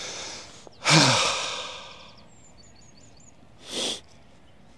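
A man's long, heavy sigh of frustration, voiced at first and falling in pitch as it trails off into breath, followed by a short sharp breath near the end.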